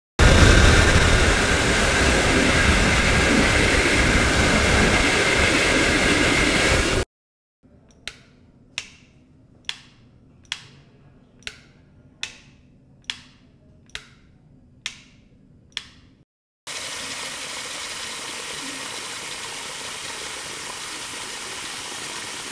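Three Foley effects in turn: a loud steady rushing noise for about seven seconds that cuts off suddenly, then ten sharp ticks a little more than one a second, then a quieter steady hiss.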